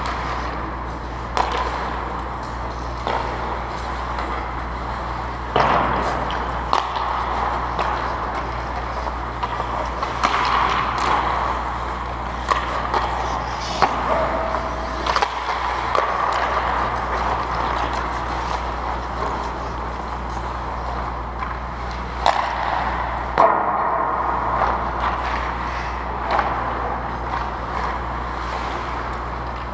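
Ice hockey play in an indoor rink: skate blades scraping on the ice, with sharp clacks of sticks and puck now and then, over a steady low hum.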